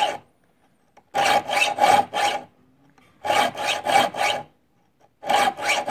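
A 4-inch double extra slim taper file rasping across the rip teeth of a dovetail saw as they are sharpened. It comes in three quick runs of about four push-and-drag strokes each, with a short pause between runs as the file moves to the next tooth.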